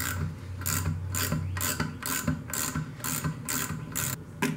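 Hand socket ratchet clicking in repeated back-strokes, about two a second, as the bolts of an outboard lower unit's water pump cover are backed out.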